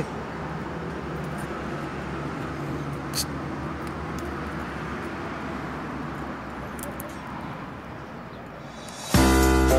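Steady outdoor street background noise, a low rumble with a light hiss, with one short click about three seconds in. Background music cuts in abruptly about nine seconds in.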